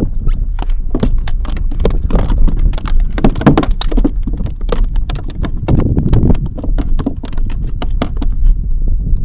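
A quick, irregular run of sharp knocks and thumps against a kayak, dozens of them with no steady rhythm, over a low rumble.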